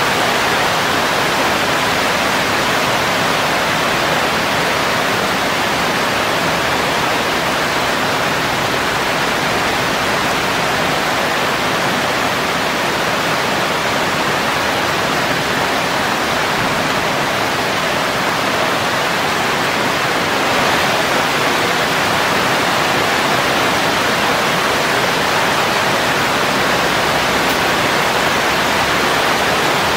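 Steady heavy rain falling on leafy garden vegetation, an even hiss that does not let up.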